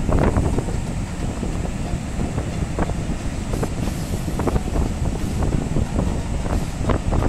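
Sea surf washing in over a rocky shore: a steady low rumble of waves with repeated splashes of water among the rocks, and wind on the microphone.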